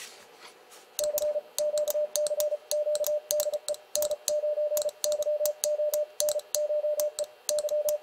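Transceiver's Morse code sidetone, a single steady beep keyed on and off in fast dots and dashes at 34 words per minute, sending CQ. The brass paddle's contacts click in time with it. It starts about a second in.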